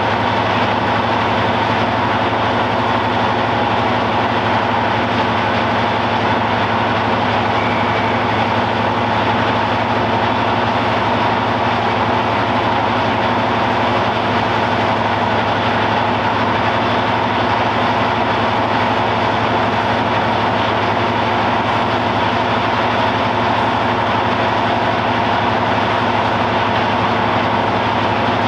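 Class 55 Deltic diesel locomotive idling at a standstill, its twin Napier Deltic two-stroke engines running with a loud, steady, unchanging note.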